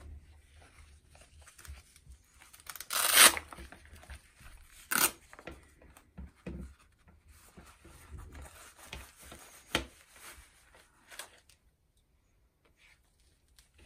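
Hook-and-loop wrist strap of a goalkeeper glove ripped open with a loud tear about three seconds in, followed by several shorter scratchy rips and rubbing as the glove is pulled onto the hand and the strap is worked.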